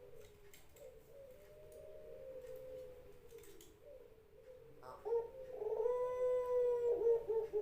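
Puter pelung dove cooing in a long, wavering, wail-like call likened to a kuntilanak's voice. It grows louder about five seconds in with a held note, then breaks into pulses near the end.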